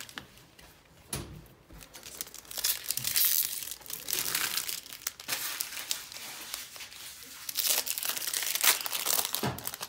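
Trading-card pack wrappers being torn open and crinkled, one pack after another, in irregular crackly spells.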